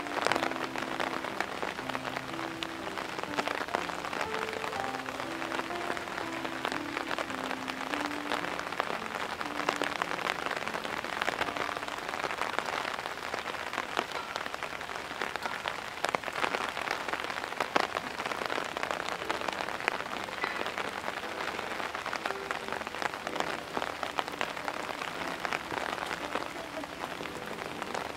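Heavy rain falling steadily: a dense hiss made of countless fine drop ticks. Faint background music plays over the first several seconds.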